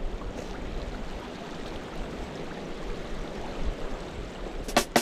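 A steady rushing noise with no distinct tones. Just before the end, loud beats of electronic music come in sharply.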